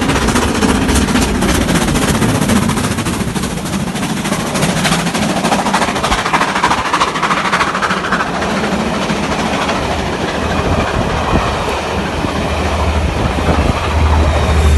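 LMS Black 5 steam locomotive working its train past, with a rapid run of exhaust beats over the rumble of the coaches on the rails.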